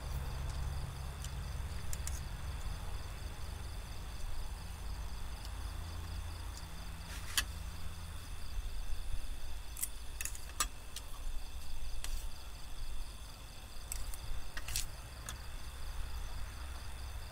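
Steady chorus of insects such as crickets, as a high constant trill over a low continuous hum, with a few sharp clicks or taps about 7, 10, 14 and 15 seconds in.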